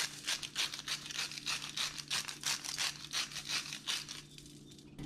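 Sea salt grinder being twisted by hand, a rapid run of gritty crackling clicks as the salt crystals are crushed, stopping about four seconds in.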